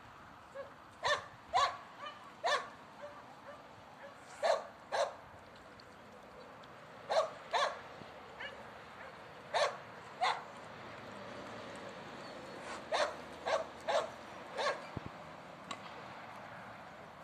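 Striped wild boar piglets squeaking in short, high-pitched calls, mostly in pairs or clusters of two to four, about a dozen in all.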